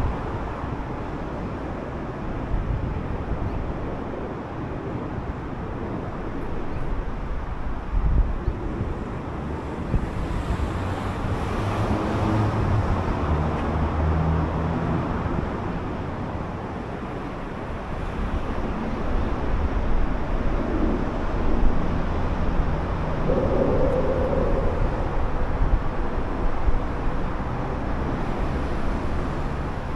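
Car being driven through city streets: steady road and engine noise with tyre rumble, swelling louder about ten seconds in and again a little before the twenty-second mark.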